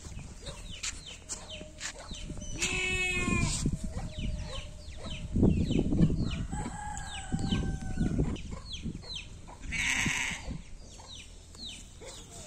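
Chickens clucking and chirping in short falling calls that repeat several times a second. There is a longer call with a strong pitch about three seconds in, and a harsh rasping call near the ten-second mark.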